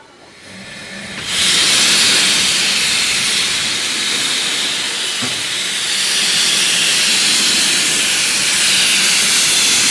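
Steam hissing steadily and loudly from the cylinder drain cocks of the Hunslet 0-4-0T narrow-gauge tank engine 'Maid Marian', starting about a second in.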